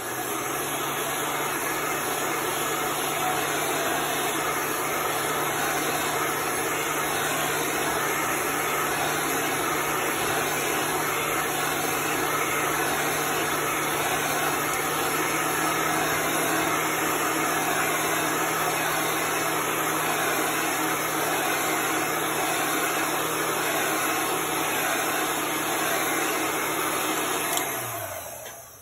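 Handheld hot-air dryer blowing steadily to dry chalk paste on a wooden sign: a loud, even rush of air over a low motor hum. Near the end it is switched off and the motor winds down with a falling hum.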